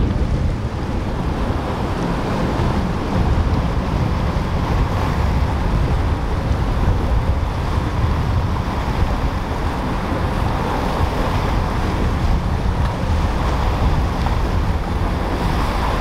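Powerboats running hard through breaking inlet surf: a steady rush of waves and hull spray with a low engine rumble underneath, and wind buffeting the microphone.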